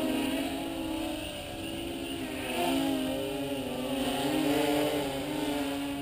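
Electric motors and propellers of a radio-controlled tricopter buzzing in flight, the pitch rising and falling as the throttle changes.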